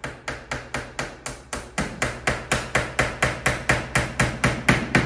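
Hammer tapping finishing nails into a wooden interior window stop: a quick, even run of about four blows a second, growing louder toward the end.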